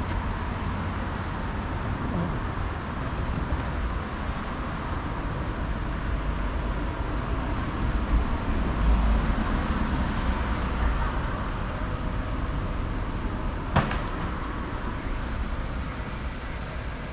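Steady city-street traffic noise, with a vehicle rumble swelling about halfway through. A single sharp click or knock sounds near the end.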